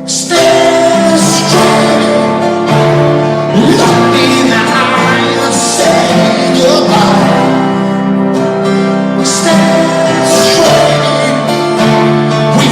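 Rock band playing live, loud and steady, with guitar and held chords changing every second or two.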